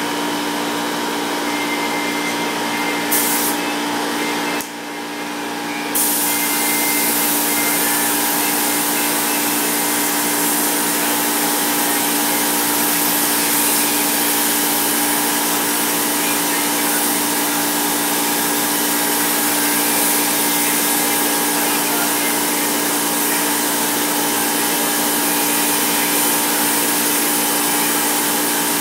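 Gravity-feed air spray gun hissing steadily as it lays on a coat of paint, over a steady mechanical hum. The hiss drops away for about a second some five seconds in, then comes back a little louder.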